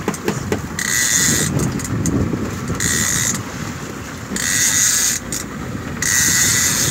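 Fishing reel being cranked in four short spurts about a second and a half apart as a fish is reeled in, each spurt a high-pitched whir. Steady wind and water noise run underneath.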